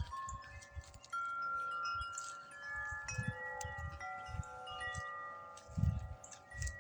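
Tubular wind chimes ringing in the wind, several tubes struck again and again with long overlapping tones. Low gusts of wind rumble on the microphone at times.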